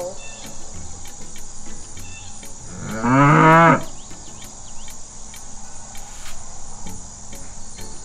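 A cow moos once for about a second, a little past three seconds in, rising slightly in pitch and then holding. Underneath is a steady high chirring of crickets.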